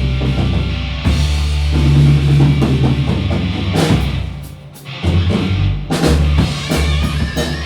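A rock band playing live: drum kit hits over held bass notes, with a brief drop in loudness about four and a half seconds in before the band comes back in.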